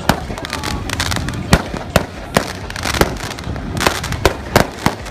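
Fireworks going off overhead: a string of sharp bangs at irregular intervals, about nine in five seconds, over a steady background noise.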